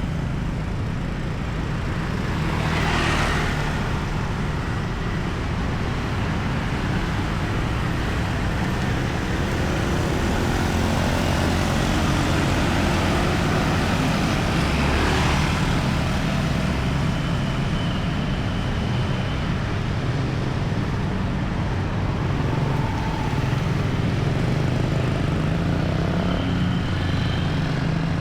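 Steady traffic noise on a busy city road: car and motorcycle engines running and tyres on asphalt, with vehicles passing close by about three seconds in and again around fifteen seconds.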